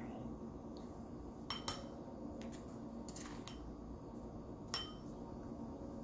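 Light clinks and taps of a small metal mesh sieve being shaken and knocked while dusting powdered sugar, a few scattered strikes with two close together about a second and a half in.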